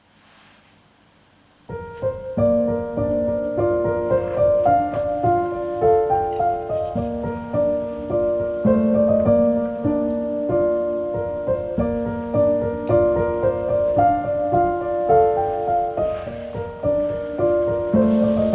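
Background music: a solo piano piece that comes in about two seconds in after a brief near-silent pause, playing a flowing melody over chords.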